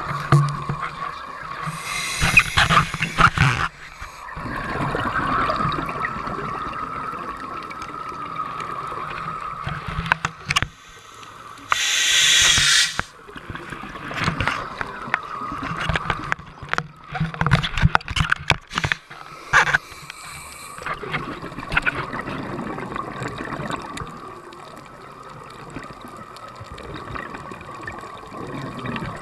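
A scuba diver breathing through a regulator, heard underwater through the camera housing: three loud bursts of bubbles and hiss, about eight to ten seconds apart. Between them come clicks and knocks as the camera housing rubs and bumps against the diver's gear.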